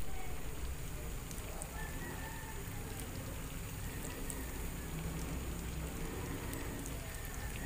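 Tofu squares sizzling in hot oil in a frying pan, a steady crackle, with a few faint clicks scattered through it.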